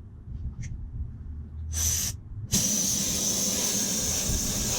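Pressure sprayer spraying onto an air-conditioner condenser coil: a short hiss of spray about two seconds in, then a steady spray hiss from about halfway on.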